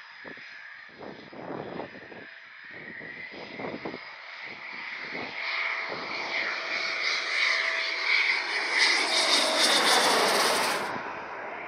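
Eurofighter Typhoon's twin EJ200 turbofan jet engines on landing approach, growing steadily louder as the jet nears and passes close by, with a high whine that drops in pitch as it goes past. The sound cuts off suddenly near the end.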